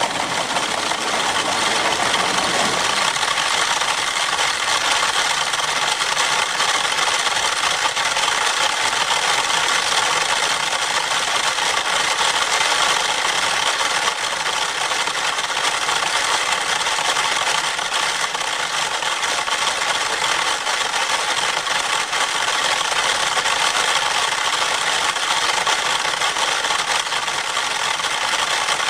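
About a hundred wind-up pyramid metronomes ticking at once, each at its own tempo, their ticks merging into a dense, steady clatter.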